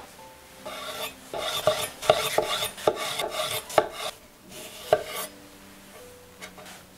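Chef's knife slicing through ripe tomatoes on a wooden cutting board. It makes a series of quick cutting strokes, each ending in a sharp tap of the blade on the board, and stops about five seconds in.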